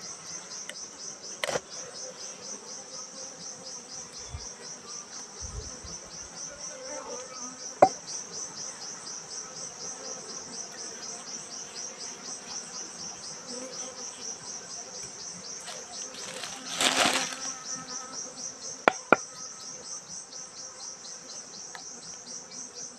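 Insects chirping steadily at a high pitch in a fast, even pulse. A few sharp knocks and a short scrape come from honeycomb being cut with a knife on a wooden board.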